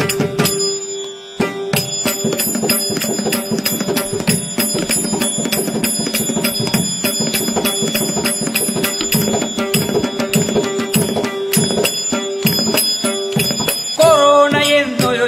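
Instrumental Indian devotional-style music: rapid, even percussion strokes over a steady drone, with high bell-like ringing tones. A voice comes in near the end.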